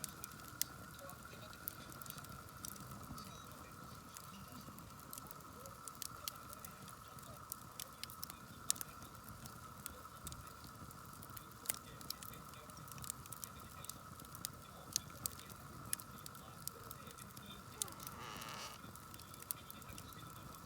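Wood campfire crackling, with sharp irregular pops every second or so.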